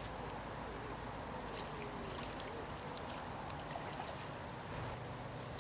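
Faint, steady outdoor background with light trickling water.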